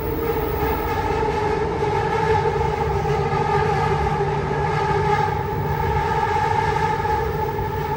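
Metro train running through an underground tunnel, heard from inside the carriage: a steady rumble with a constant high whine over it.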